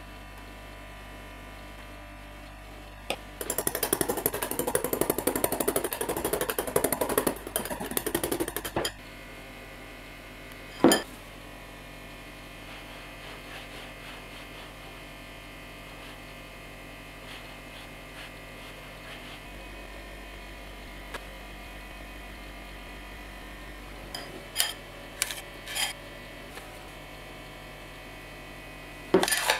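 Cream being worked by hand in a glass bowl: a fast, dense rattle of the utensil against the glass for about five seconds, starting a few seconds in. Then a single sharp knock, soft scraping of a palette knife spreading whipped cream over sponge cake, and a few light clicks and knocks near the end, over a steady low hum.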